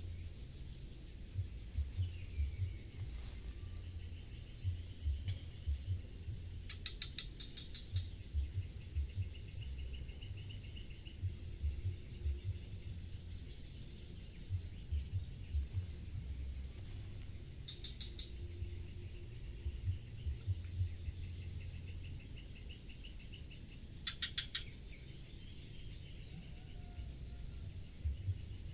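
Steady high-pitched insect drone, broken a few times by short bursts of rapid chirping trills, over irregular low rumbling bumps on the microphone.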